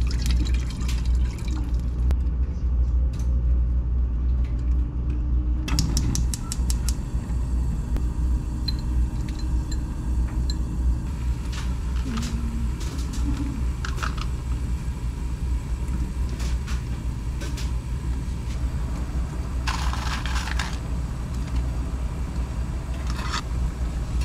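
Water pouring from a plastic pitcher into a saucepan for the first second or so. Then scattered clicks and short clatters of kitchen utensils follow, over a steady low rumble.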